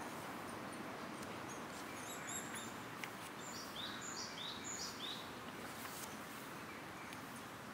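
Steady outdoor background noise with a bird chirping. About halfway through, a bird gives a run of four quick, high, down-slurred calls.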